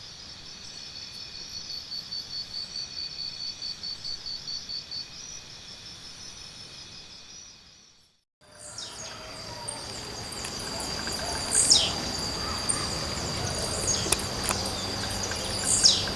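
High pulsed insect trill, about four beats a second, then after a break a steady high insect drone. Over the drone a blue-black grassquit gives its short, sharp song twice, each a quick falling note, a few seconds apart.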